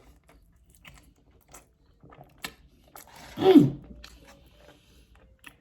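A person chewing a soft flour-tortilla baleada, with scattered small wet mouth clicks. About three seconds in comes a loud, short throaty vocal sound that falls in pitch.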